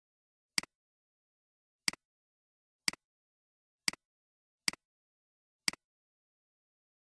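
Computer mouse clicks, six in all, irregularly spaced about a second apart, each a sharp press-and-release double tick with dead silence between.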